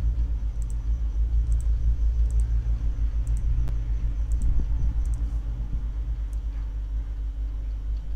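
A computer mouse clicks about eight times in short click-pairs over a steady, loud low rumble.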